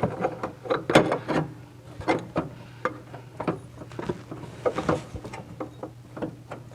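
Irregular metal knocks, clicks and scrapes as an intake manifold is wiggled loose and pulled out of a 1968 Volkswagen Karmann Ghia's air-cooled engine.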